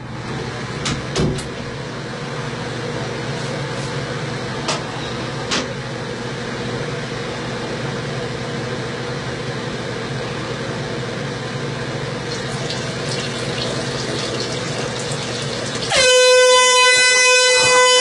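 A steady rushing hiss with a few faint clicks. Near the end an air horn gives one loud, sustained blast, far louder than anything before it.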